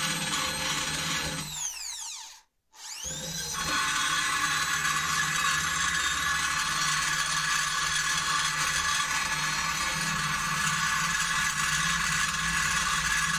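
Die grinder with a small white mounted point grinding rusty shovel steel, a steady high whine. About two seconds in it winds down and cuts out briefly, then spins back up and runs on steadily.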